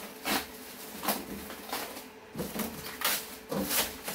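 Clear plastic wrapping crinkling and rustling in a run of short bursts, about six, as it is pulled and torn off a computer tower case by hand.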